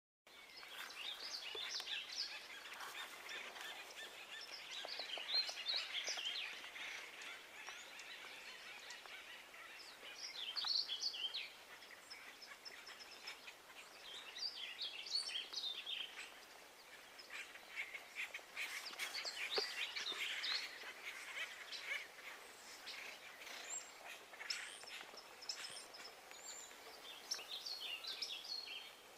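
Wild birds calling and chirping in the background, in repeated bursts of quick chirps.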